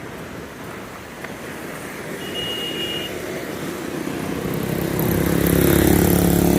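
A motor vehicle's engine grows louder as it approaches and is loudest near the end, over a low background of street noise. A brief high tone sounds about two seconds in.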